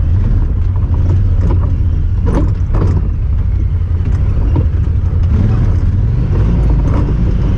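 Honda Talon 1000R side-by-side's engine running in a steady low drone while driving, with a few short knocks and rattles about two to three seconds in.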